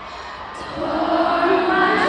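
A group of voices starts singing together about two-thirds of a second in, choir-like, rising out of a low murmur of voices and growing louder.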